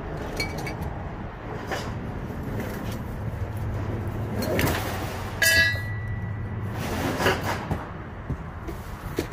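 Shop vacuum's cord and hose being handled and untangled: scattered rustles and knocks, with a sharp ringing clink about five and a half seconds in, over a steady low hum.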